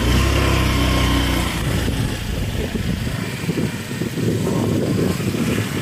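Small motorcycle engine running at low speed. It hums steadily for the first second and a half, then gives way to rougher road and wind noise.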